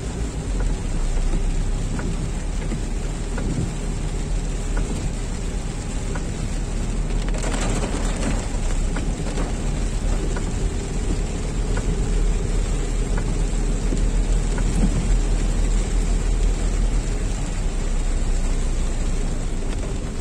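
Heavy rain falling on a moving car's roof and windscreen, heard from inside the cabin as a steady hiss over the low rumble of the car's engine and tyres on the wet road.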